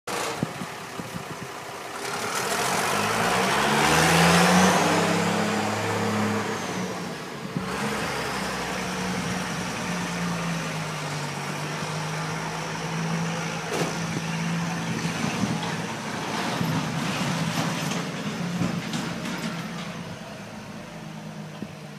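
Bedford lorry and Land Rover engines running as the vehicles pull away. The engine noise swells to its loudest about four to five seconds in, then carries on as a steady drone.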